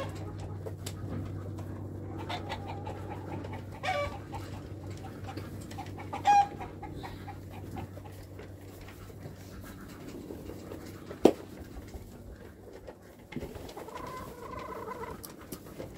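Chickens clucking and calling now and then in short calls, with one longer call near the end. A single sharp knock sounds about eleven seconds in.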